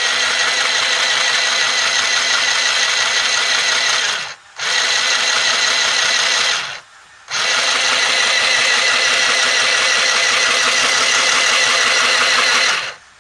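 Mini electric sewing machine's small motor running under the foot pedal, winding thread onto a bobbin: a steady whine, run three times with two short stops, about a third and halfway through, before it cuts off near the end.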